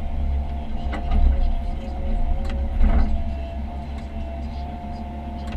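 Komatsu PC138US excavator's diesel engine running steadily under load, with a hydraulic whine that wavers in pitch as the controls are worked. A few sharp knocks sound about one second and three seconds in.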